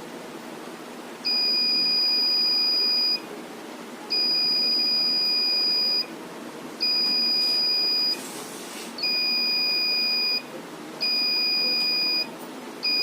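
Electronic buzzer of a homemade laser security alarm going off: a steady high-pitched tone sounding in six on-off bursts of one to two seconds each, at uneven gaps.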